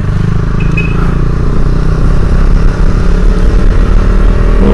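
Motorcycle engine running under way, with wind rushing over the microphone; the engine gets gradually louder from about a second in.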